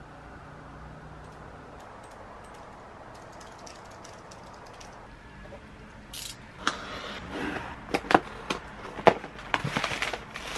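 Objects being handled: after a stretch of steady low hiss, a busy run of clicks, knocks and rustling starts about six seconds in and grows louder near the end.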